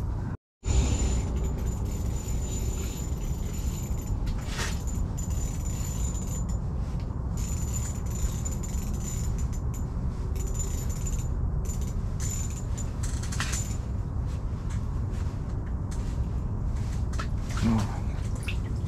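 Steady low rumble with a few light clicks and rattles from a fishing reel and tackle being handled.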